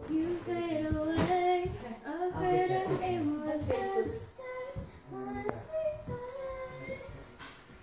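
A young girl singing a song, holding notes that slide up and down in pitch.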